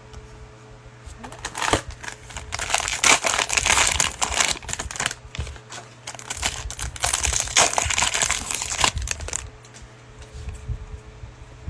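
Cellophane wrapper of a 2021 Panini Mosaic football cello pack crinkling as it is worked and torn open by hand, in two long spells of crackling.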